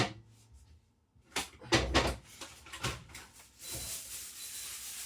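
Several clunks and knocks of things being handled at an open fridge, the loudest a dull thud about two seconds in. Then a steady hiss, with a faint, high intermittent beep: the fridge warning that it is not cold enough.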